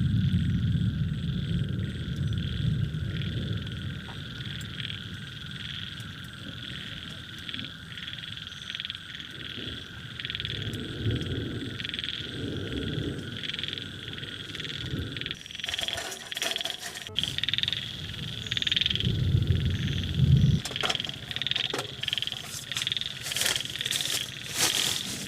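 Frogs calling in a chorus: a steady high trill with repeated pulsed calls over it, and a low rumble that comes and goes. About two-thirds of the way through, a run of sharp taps and clicks starts and carries on to the end.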